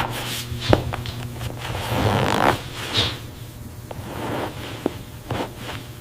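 Workshop handling sounds: a few sharp clicks and knocks and stretches of rubbing or scraping, over a steady low hum.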